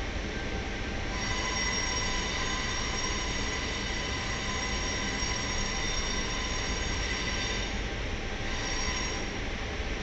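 C set double-deck electric train running, heard from inside the carriage: a steady low rumble, with high-pitched wheel squeal against the rails that sets in about a second in, holds for several seconds, fades, and comes back briefly near the end.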